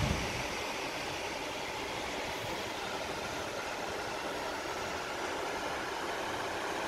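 Steady rushing noise of wind and the ship's churning wake heard from an open cruise-ship balcony, with a low wind rumble on the microphone right at the start.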